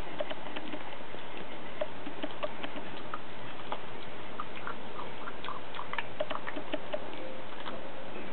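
A Groenendael puppy gnawing a raw turkey leg: irregular clicks and crunches of teeth biting on the skin and bone.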